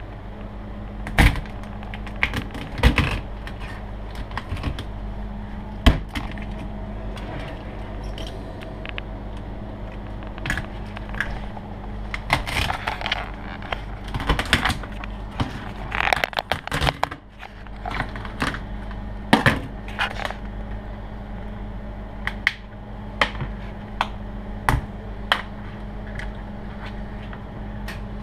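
Large chef's knife cutting through a crayfish's hard shell and knocking on a plastic cutting board: sharp, irregular knocks and cracks, with a stretch of scraping and rattling in the middle, over a steady low hum.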